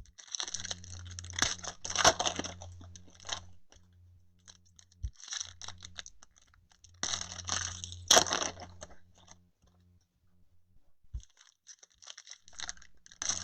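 Foil trading-card pack wrappers crinkling and tearing as packs are opened, in several spells of a second or three each with short pauses between.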